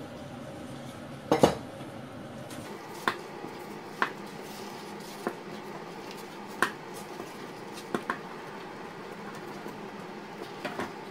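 A spoon clinking against the side and rim of a metal saucepan while butter is stirred into mashed potato. There are sharp knocks every second or so, the loudest a double knock about a second and a half in.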